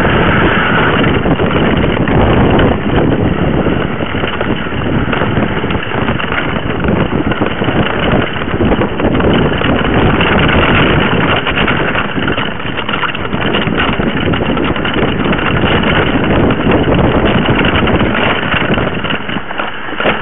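Mountain bike riding a dirt singletrack, heard through a camera mounted beside the front wheel: a loud, continuous rumble and rattle of the tyre rolling over the trail and the bike and mount shaking.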